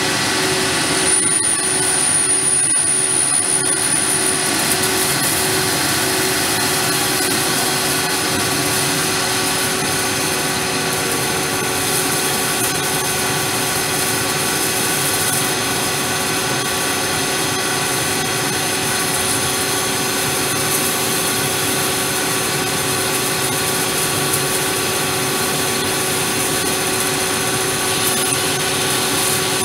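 CNC lathe turning a piston blank: the steady hum and whine of the spindle over the hiss of the tool cutting and chips peeling off. A thin high whistle sounds between about one and four seconds in.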